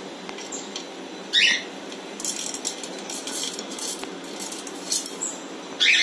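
Alexandrine parakeet giving two short, loud, harsh calls, one about a second and a half in and one near the end. Between them come scattered small clicks and crackles.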